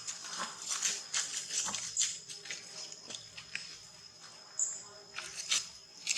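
Monkey making a series of short, sharp sounds, with a steady high-pitched hum behind.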